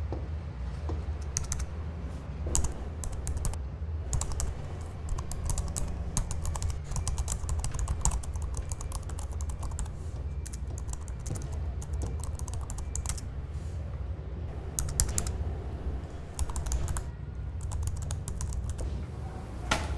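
Typing on a laptop keyboard: rapid runs of key clicks with brief pauses between them, over a steady low hum.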